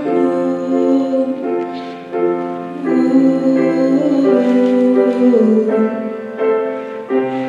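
Slow piano music with a voice singing long, held notes that waver slightly in pitch around the middle.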